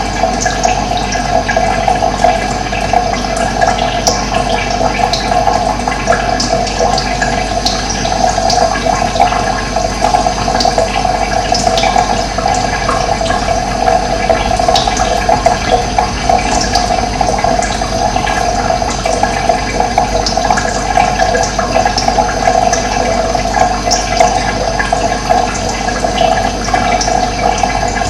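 Steady rushing of running water, with short high chirps of birds scattered over it.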